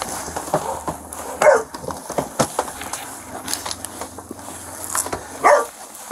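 A feral dog giving two short barks that fall in pitch, about a second and a half in and again near the end, with clicks and knocks from metal and plastic catch poles being handled.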